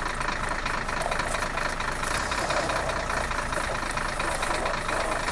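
Steady, rattling engine-like running sound that goes with a toy JCB backhoe loader being driven along.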